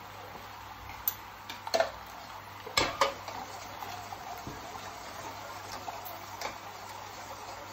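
A metal saucepan set down on a gas hob with a few clanks, the loudest about three seconds in, then lighter clinks of a ladle against the pans, over a steady faint hiss from the cooking pans.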